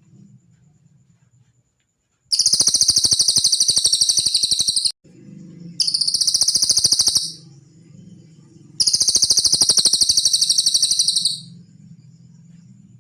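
Cililin bird song: three loud, high, rapid trills of evenly repeated notes, each one and a half to two and a half seconds long, separated by short pauses.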